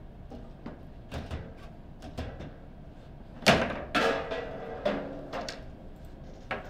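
Foosball table in play: light clacks of the ball and rods, then a hard crack about three and a half seconds in as a shot goes into the goal, followed by more knocks and rattling as the ball drops out and is put back.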